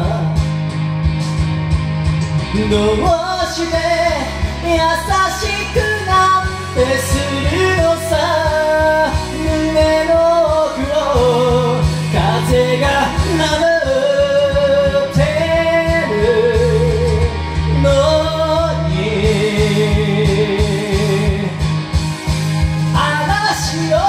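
Karaoke: a person singing a Japanese ballad over the backing track, with vibrato on the long held notes.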